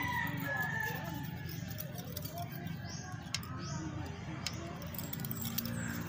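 A few light metallic clicks of a ring wrench and feeler gauge on the engine's valve rocker arms during a valve clearance adjustment, over a steady low hum.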